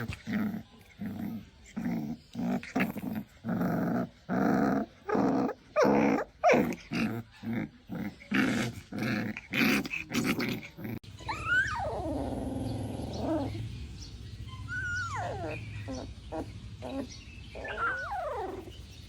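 A puppy growling in a rapid series of short growls for about ten seconds, then giving several high whines that slide down in pitch.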